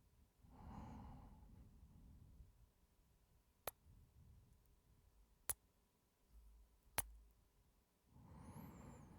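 A man's breathy sigh close to the microphone, then three sharp kisses about one and a half to two seconds apart, and another long breath near the end.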